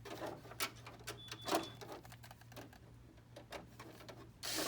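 Screwdriver turning a tight screw in a printer finisher's frame: scattered clicks and scrapes of metal and plastic, with a short high squeak about a second and a half in and a louder rasp near the end. A steady low hum runs underneath.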